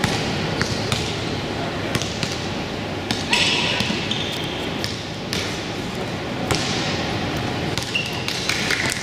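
Basketball game in a gym: the ball bouncing on the court with scattered thuds and short high squeaks, over a steady murmur of voices.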